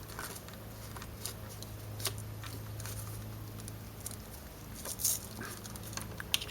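Small ticks and taps of wire ends and solder being handled while the wires are tinned with a soldering iron, over a steady low hum that weakens about two-thirds of the way through.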